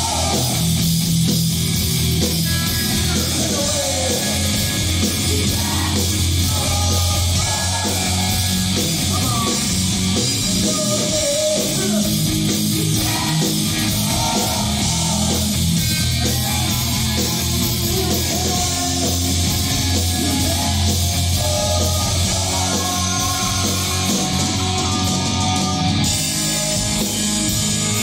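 Heavy metal band playing live at full volume, with electric guitars and drums and a singer's voice over the top.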